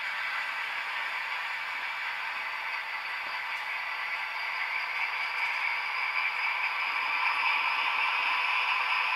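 HO-scale model train running on the layout's track out of view: a steady light rolling rattle of wheels on the rails with a faint motor whir, growing louder from about halfway through as it comes closer.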